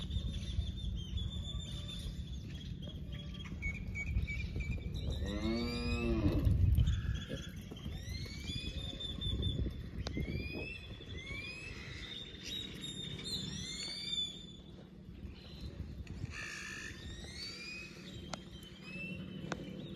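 A cow moos once, a long call that rises and falls, about six seconds in. Birds chirp with short rising calls all through, over a low rumble like wind on the microphone.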